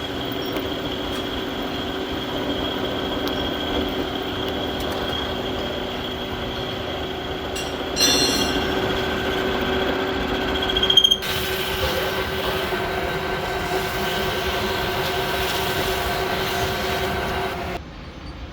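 A machine running steadily with a drone and a high whine, changing abruptly about 8 and 11 seconds in and dropping sharply near the end.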